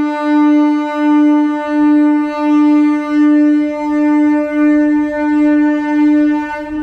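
Train air horn sounding one long, steady blast at a single pitch, with a slight regular swell in loudness about three times every two seconds.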